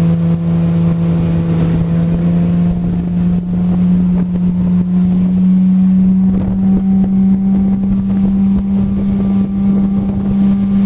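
Motorboat engine running at speed, a steady drone that climbs a little in pitch over the first few seconds as the boat picks up speed. Wind buffets the microphone throughout.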